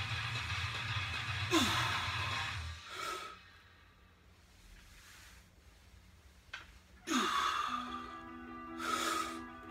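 Background music, with a weightlifter's heavy breathing between barbell squat reps: two loud breaths out, each falling in pitch, about five and a half seconds apart, each followed by a shorter breath.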